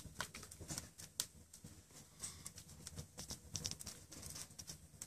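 Wood fire in an open fireplace crackling, with faint, irregular pops and snaps several times a second.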